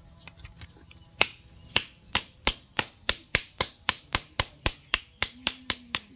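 A hatchet head striking a steel spoon laid on a wooden stump, hammering it flat: a few light taps, then sharp metal-on-metal strikes about four a second from about a second in.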